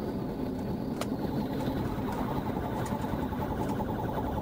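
Steady road and engine noise inside a car at highway speed. From about two seconds in, a rapidly pulsing electronic tone joins it.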